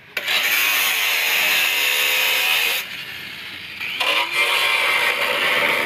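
Angle grinder with an abrasive disc grinding on a steel truck chassis rail. The loud grinding drops its pitch as the disc bites. It eases off about three seconds in and spins back up with a rising whine about a second later.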